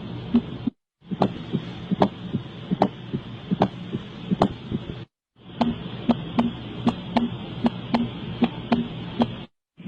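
Recorded heart sounds: a regular beat of paired lub-dub sounds, a little under one a second, over a steady low hum. The recording breaks off into silence twice, about a second in and about five seconds in, and again just before the end.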